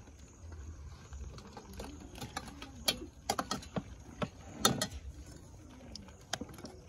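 Irregular knocks and clatter of plastic bowls and plates as food is scooped from a large plastic basin and served, the loudest knock a little past halfway, with faint voices in the background.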